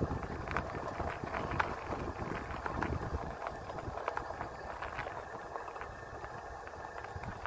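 Wind buffeting the microphone with an irregular clatter of small clicks and rattles from an e-bike rolling over rough pavement.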